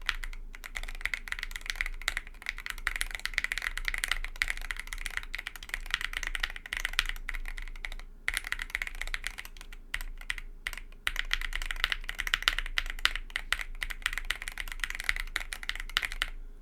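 Heavy, fast typing on a mechanical keyboard with Everglide Aqua King v3 linear switches on 67g springs, PBT keycaps and an aluminium TOFU65 case: a dense run of key clacks with two short breaks, stopping near the end.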